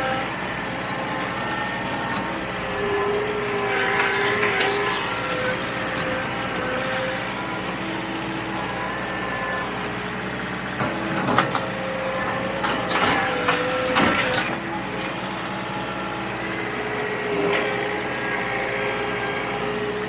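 John Deere 4052R compact tractor's diesel engine working under load, its pitch rising and falling as it pushes and box-blades asphalt millings. A few sharp clanks and crunches from the blade and material come through over the engine.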